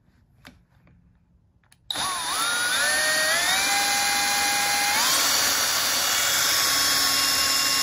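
Power drill spinning a Lucas C40 dynamo by its shaft for a bench test. The drill starts about two seconds in, its whine rising in steps as it speeds up, then running steady.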